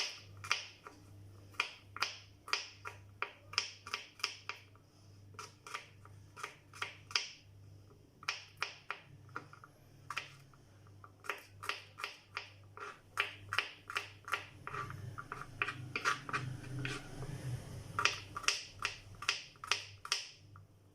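Knife cutting garlic cloves into small pieces: a long run of sharp, irregular clicks, mostly one to three a second, with quicker runs of cuts midway and near the end.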